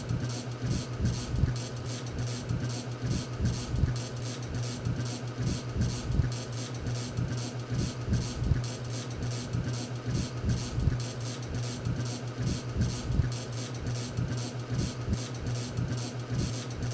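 End-credits music: a steady low drone under a fast, regular pulsing rhythm.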